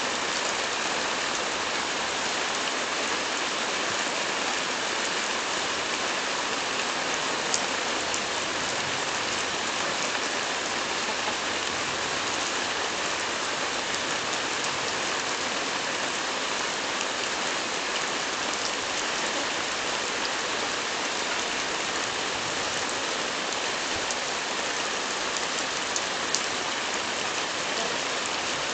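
Steady even hiss of rain falling, with a few sharp clicks, one about seven seconds in and a couple near the end.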